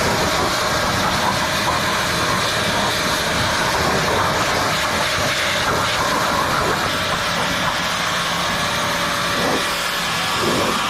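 Pressure washer running: a motor's steady drone under the continuous hiss of the high-pressure water jet spraying.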